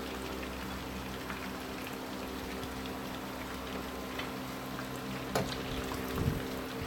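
Battered pollock fillets frying in hot canola oil, a steady sizzle and crackle, with a sharp click about five seconds in.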